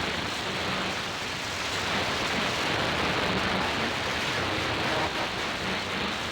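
Radio receiver tuned to 27.025 MHz on the 11-metre band, hissing with steady static on an open channel between transmissions, with a faint low tone coming and going.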